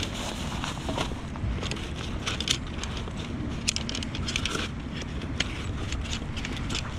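The folded aluminium pole frame of a Trekology Yizo Go camping chair clinking and clicking as it is pulled out of its fabric stuff sack, with the sack rustling. Wind rumbles on the microphone throughout.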